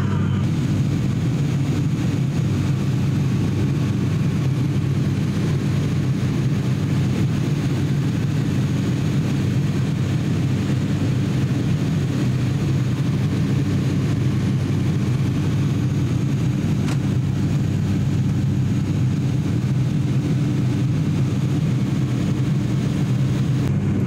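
Steady drone of an ATR 42-600's turboprop engines and propellers in flight, heard from inside the passenger cabin: a constant low hum made of several steady tones.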